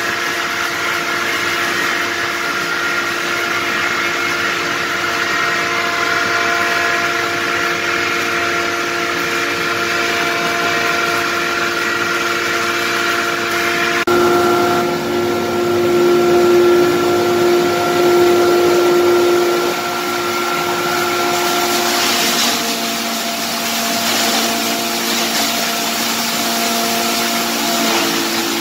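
7.5 kW three-phase hammer mill and its transport fan running steadily, with a whine of several fixed tones over a rushing noise. The tones shift about halfway through, and a few short rushes of brighter noise come near two-thirds in.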